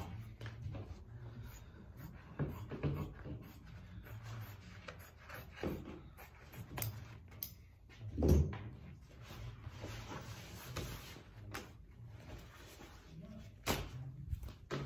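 Cowhide and tools being handled on a workbench while it is laid out for a rough cut: scattered soft knocks and rubbing, with a heavier thump about eight seconds in and a couple of sharp clicks near the end.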